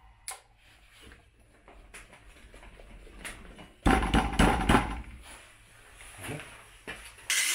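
Light clicks and knocks of steel parts being handled on a bench vise, with a louder burst of metal clattering and rubbing about four seconds in. An angle grinder starts up right at the end.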